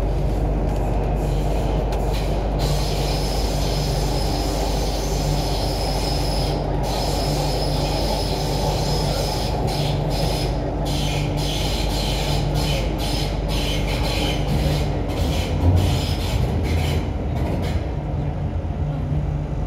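Inside an MTR Q-Train metro car running on the line: a steady rumble of wheels on rail and a low motor hum, with a thin high whine from about two seconds in to about ten seconds in, and a brief low thump a little after fifteen seconds in.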